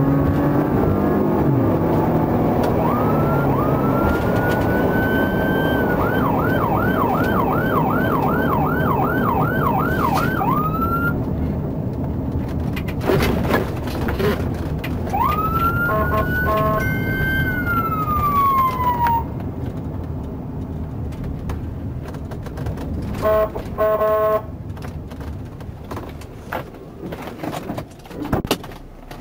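Police patrol car siren. It starts with a rising wail a few seconds in, switches to a fast yelp of about a dozen quick up-and-down sweeps, then gives a second wail that winds down past the middle, and near the end a few short blips. The patrol car's engine and road noise run underneath and fade as it slows to a stop.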